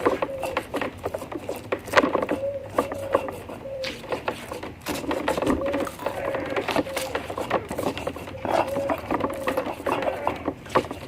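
A dove cooing over and over in short, even-pitched phrases, against clicks and knocks of kitchen work and faint voices.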